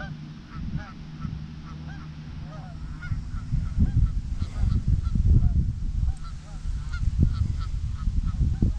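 Canada geese honking: many short calls overlapping, over a heavy low rumble that grows louder about three seconds in.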